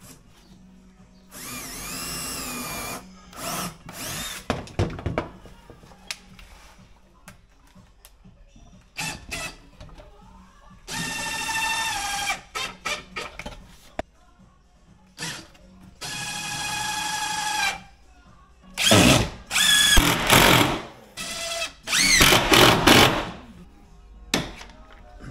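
Festool cordless driver driving screws into an 18 mm MDF cabinet: several short runs of motor whine, each winding down as it stops, then louder, rougher bursts near the end as the screws are tightened.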